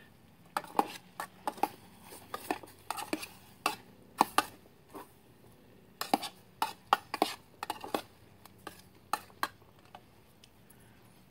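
A metal spoon stirring and scraping Spam chunks in a metal canteen cup, making irregular clinks and scrapes against the cup, some in quick clusters.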